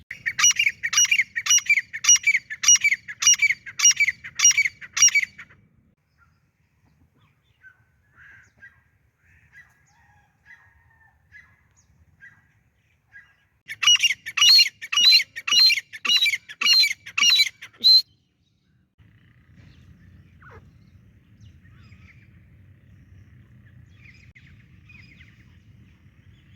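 Grey francolin (teetar) calling in two bouts of loud, shrill notes repeated about twice a second. The first bout lasts about five seconds, and the second comes about halfway through. Faint chirps fall between the bouts.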